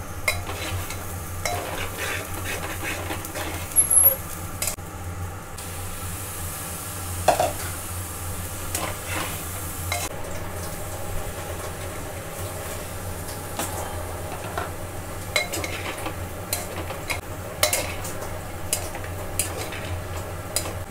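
A spatula stirring and scraping rice, dal and vegetables frying in a pot, with light sizzling and scattered clicks of the spatula against the pot. A steady low hum runs underneath.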